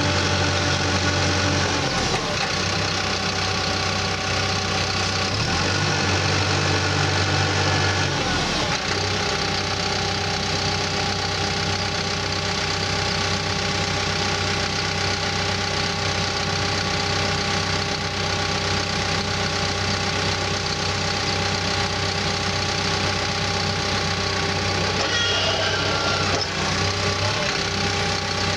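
CAT D5K2 bulldozer's diesel engine running steadily, its note shifting a few times in the first nine seconds before settling, with a brief rising whine about 25 seconds in.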